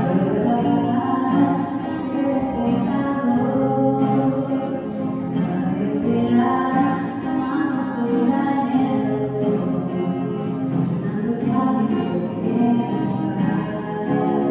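A voice singing a slow melody over a strummed acoustic guitar, the strums sounding as regular crisp strokes.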